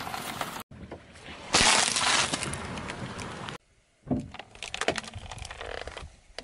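A car tyre crushing objects on a rough asphalt road. The loudest part is a burst of crunching and breaking about a second and a half in that lasts about two seconds. After a short break come quieter crackles and clicks as the tyre rolls slowly over the grit.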